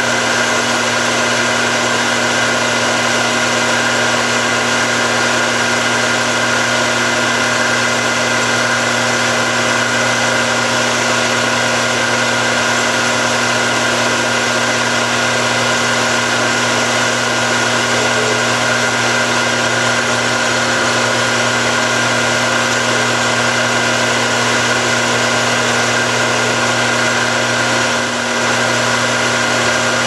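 Metal lathe running steadily while a boring bar cuts inside a turned knob stem: a constant motor and gear hum with a steady high whine.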